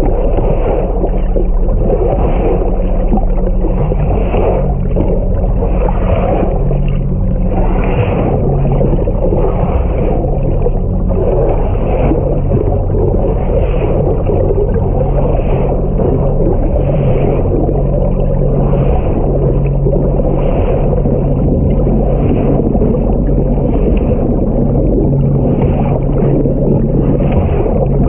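A boat's inboard engine running steadily under way, a constant low drone mixed with water noise that swells softly about every one and a half seconds.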